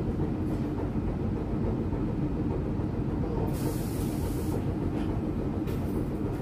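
1944 PCC streetcar running on its rails, heard from inside the car: a steady low rumble, with a brief hiss about three and a half seconds in.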